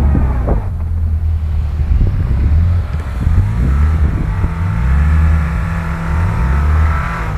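Car engine revving under load in snow, its pitch rising and falling several times in the second half.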